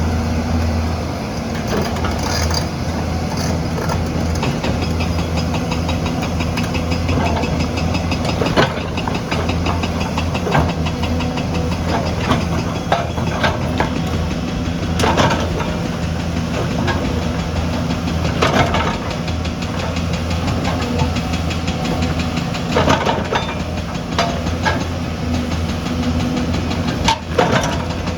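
Diesel engine of heavy construction machinery running steadily, with irregular sharp clanks and knocks every second or two.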